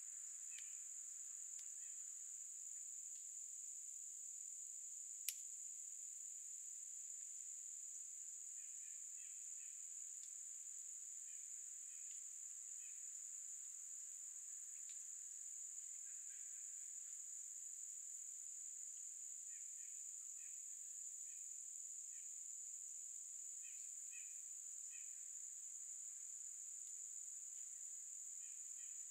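A steady, high-pitched chorus of insects trilling without a break. Faint short chirps are scattered through it, and there is one sharp click about five seconds in.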